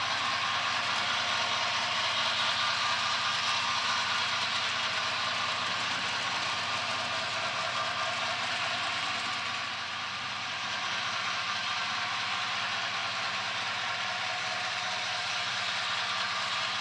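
HO scale model trains running on the layout: a steady mechanical hum with the clatter of small wheels on the track.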